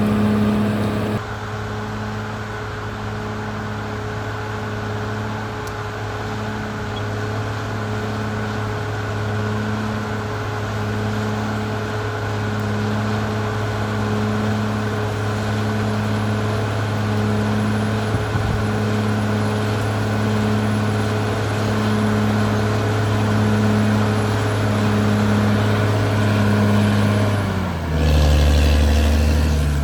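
Caterpillar D6R XL bulldozer's diesel engine running steadily under work, with a slow regular pulsing in its note. Near the end the pitch drops and then sweeps.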